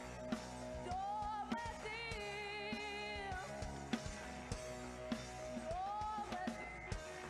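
A girls' school rock band playing live: drum hits, electric guitar and a melody line that glides up and holds a note with vibrato.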